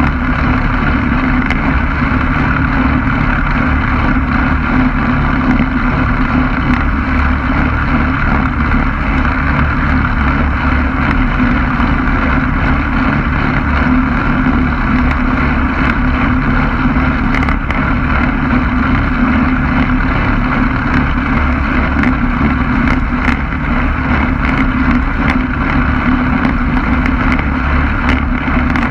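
Quicksilver MX ultralight's engine and pusher propeller running at a steady drone, with wind rushing over the microphone.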